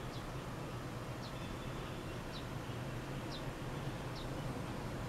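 Steady low hum of an electric stand fan, with a short, high, falling chirp repeating about once a second over it.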